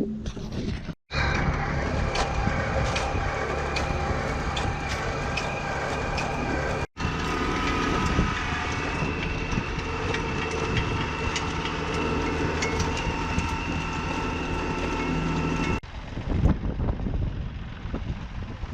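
A motor engine running steadily at a constant speed, as with power machinery used to set posts. It cuts out abruptly for a moment twice, and stops short near the end, leaving quieter outdoor noise with a few knocks.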